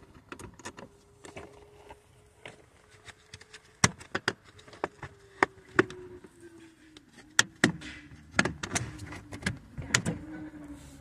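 Irregular sharp clicks and snaps of plastic as a car's rear door trim panel is pried and unclipped from the door, with knocks from the screwdriver and panel.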